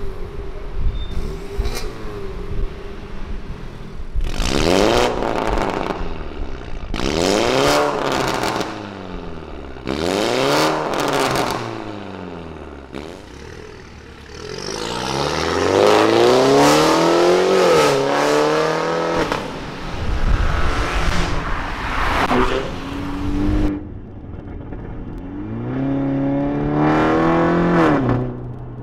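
BMW 330i's B48 2.0-litre turbocharged four-cylinder running through an Armytrix valved turboback exhaust: three quick revs that rise and fall, the first with the exhaust valves closed, then a longer pull with the pitch climbing and breaking a few times as the car accelerates, followed by a few more revs near the end.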